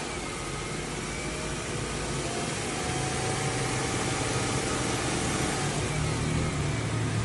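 Old car's carburetted petrol engine idling steadily with the air filter cover off. The owner puts its rough idle down to an air-fuel mixture problem from a partly blocked carburettor.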